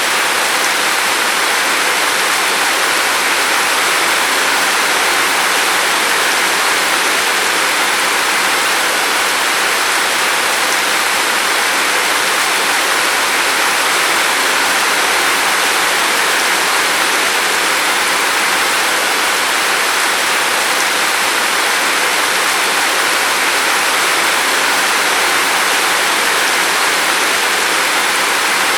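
Steady heavy rain, an even unbroken hiss of falling water with no single drops standing out.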